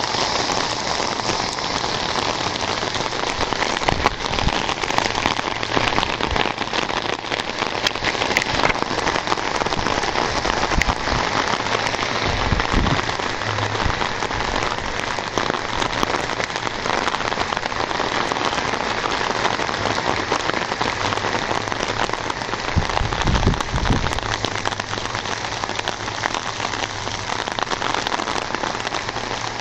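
Heavy rain pouring steadily, pattering on an umbrella overhead, with two brief low bumps, one about a third of the way in and one about three-quarters of the way in.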